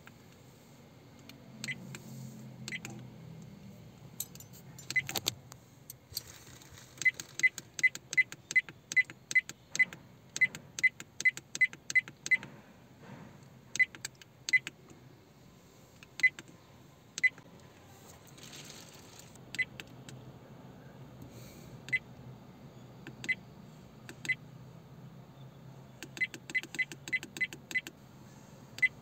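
Redtiger F7N dash cam's touchscreen click tone: short high beeps as the menu is tapped, with a quick run of about three a second a few seconds in, single beeps spaced out after that, and another quick run near the end.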